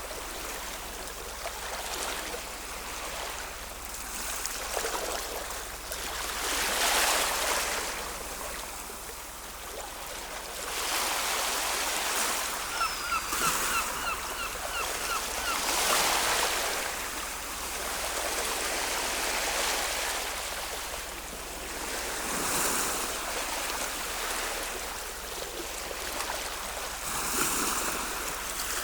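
Ocean waves breaking and washing ashore, swelling and falling back every few seconds. About halfway through, a bird gives a quick run of about eight short repeated chirps.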